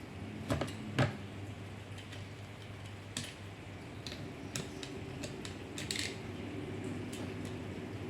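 Scattered sharp clicks and light taps from handling small plastic parts and tools, over a steady low hum.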